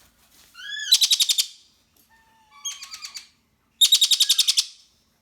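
Young Malabar parakeet giving three loud bursts of rapid, high-pitched chattering calls, each a fast run of short pulses. The second burst is quieter.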